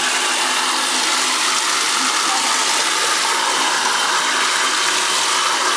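Bathtub spout running steadily, water pouring into the tub with a constant rushing hiss.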